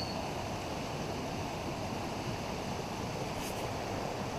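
Steady rushing of a fast-flowing, swollen stream.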